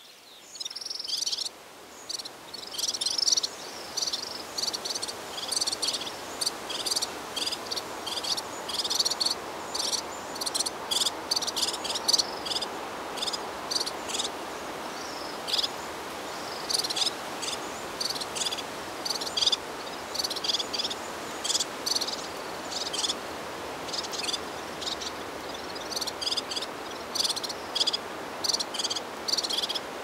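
Insects chirping in short, irregular bursts of high, scratchy pulses, over a steady background hiss.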